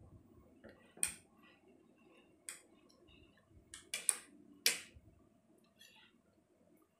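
Metal fork and spoon clinking and scraping against ceramic dinner plates while eating rice: several sharp separate clinks, a quick cluster of them a little past the middle.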